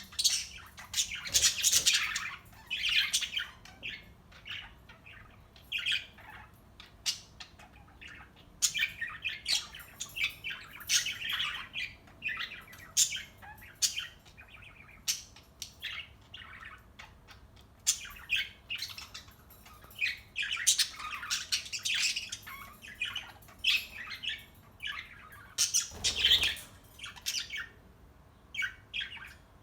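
Budgerigar chattering: irregular clusters of short, high chirps and squawks with brief pauses between them.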